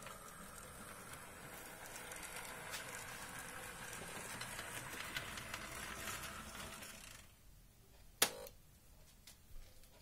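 HO scale model diesel locomotive running along the track: a faint whirring with light ticking that fades away about seven seconds in. A single sharp click follows about a second later, then a couple of fainter clicks.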